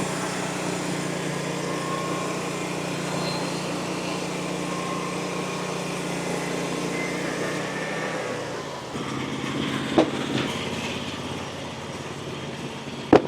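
Frontier OS35 bandsaw mill's small petrol engine running steadily; about 8 to 9 seconds in its note drops and thins. A knock comes about 10 seconds in and a sharper double knock near the end.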